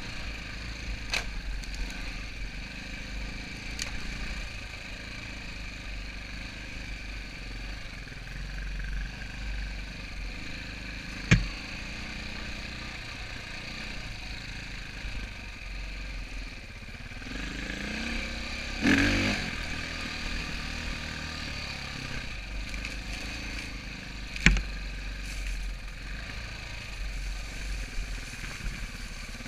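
Enduro dirt bike engine running at low trail speed, with a burst of throttle rising in pitch past the middle. Two sharp knocks stand out, about a third of the way in and again later on, with lighter clatters between.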